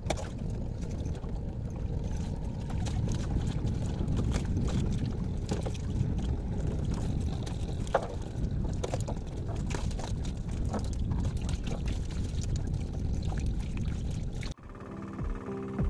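Steady low wind-and-water noise around a small wooden canoe, with scattered light clicks and rustles as a nylon cast net is gathered up and arranged for throwing. Near the end the sound cuts abruptly to synthesizer background music.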